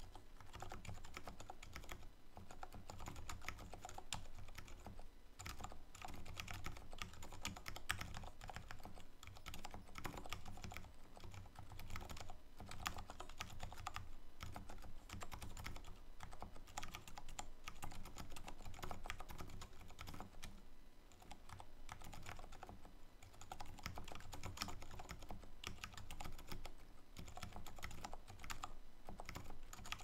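Continuous fast typing on an XD75 keyboard in a bamboo case fitted with Aliaz silent switches: an unbroken stream of keystrokes with no pauses.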